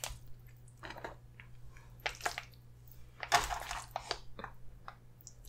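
Wooden fork twirling and lifting spaghetti in meat sauce in an aluminium foil tray: scattered wet squishes with light clicks and scrapes against the foil, the loudest a little past three seconds in.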